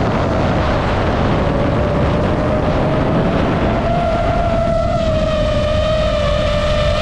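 DJI FPV drone's motors and propellers whining at a steady, slightly wavering pitch over a rush of wind and propeller noise. Extra higher overtones join the whine about five seconds in.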